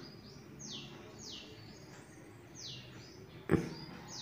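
A bird's faint, repeated chirps, each a quick high note sliding downward, several seconds apart. A single sharp click about three and a half seconds in.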